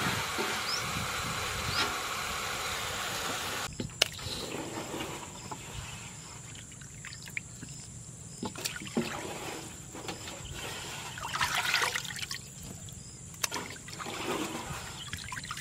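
Small wet fish being lifted from a basin of water and laid on a metal plate: trickling and dripping water with light taps and clicks against the metal. A steady noise fills the first few seconds and cuts off suddenly.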